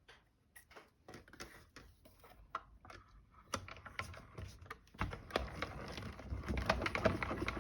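Light clicks and taps of die-cut card stock as the small cut-out holes are poked out by hand, sparse at first and busier with paper rustling from about five seconds in.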